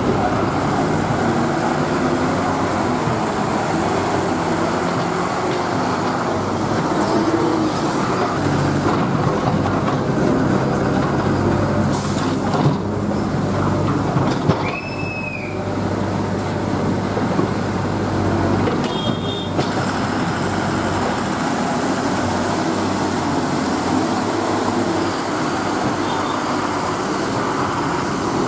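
Diesel engines of heavily loaded lorries labouring slowly through mud, a steady loud drone. A brief sharp hiss about twelve seconds in, and short high squeals around halfway and again a few seconds later.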